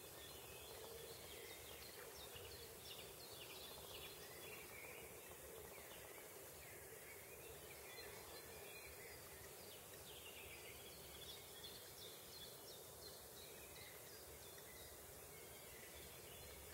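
Faint chirping of small birds: many short, high, downward-slurred notes coming in runs, over a steady background hiss.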